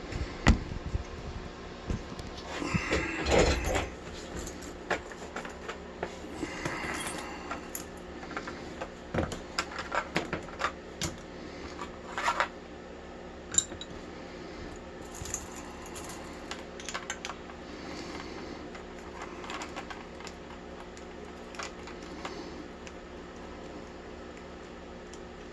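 An all-brass padlock being taken apart by hand: scattered metallic clicks, clinks and small rattles of the lock body and its parts, busiest about three seconds in, over a faint steady hum.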